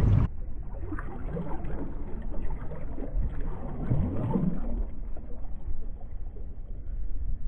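Shallow water lapping and sloshing around a wader's legs, muffled, under a steady low rumble of wind on the microphone.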